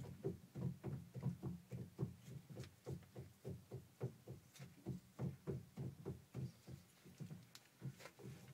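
The propeller shaft of a Bukh DV20 marine diesel is rocked by hand at its coupling, giving a rapid run of dull knocks, about three or four a second, that die away near the end. The knocking is play in the shaft, which the owner suspects is a worn cutless bearing.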